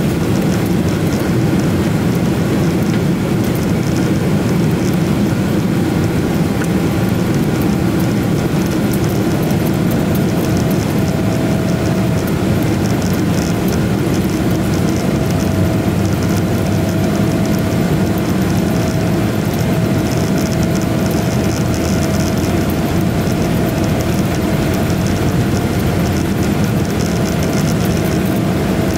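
Cabin noise inside a Boeing 777-300ER taxiing on the ground: a steady, loud rumble and hiss from its GE90 engines at low thrust and the airframe rolling along. A faint steady whine comes in about ten seconds in.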